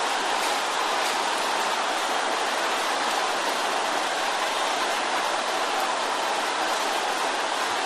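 A large congregation praying aloud all at once: a steady din of many voices, with no single voice or words standing out.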